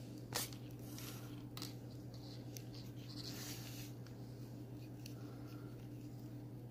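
Soft rustling and scraping as a leather lace is pulled and worked through a small leather piece by hand, with one sharp click about half a second in. A steady low hum sits underneath.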